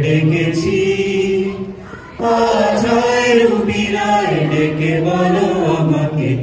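A mixed group of men's and women's voices singing a Bengali song together through microphones, with a short break about two seconds in.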